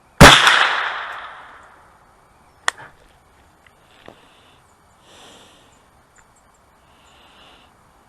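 A single loud gunshot with a long rolling echo that dies away over about a second and a half. A second, shorter and sharper crack follows about two and a half seconds later.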